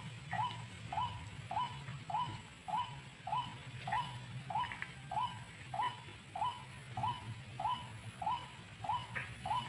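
White-breasted waterhen call repeated monotonously: a short upward-sliding note about one and a half to two times a second, with a steady low hum underneath.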